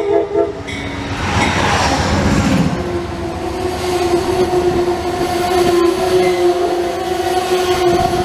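Amtrak passenger train passing close at speed. A horn blast cuts off under a second in, then there is a loud rush of wind and wheel noise as the locomotive goes by, then the stainless-steel Amfleet coaches roll past over the rails with a steady hum under the rail noise.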